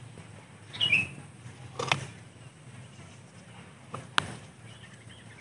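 A few sharp snips as hand cutters bite into the wood of a bonsai trunk, trimming a saw cut smooth; the loudest comes just after four seconds in. A bird gives one short, falling chirp about a second in.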